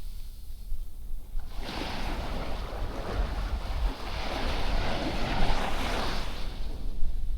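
Ocean surf: a wave washing up the beach, its hiss starting about a second and a half in and swelling, over a low rumble of wind on the microphone.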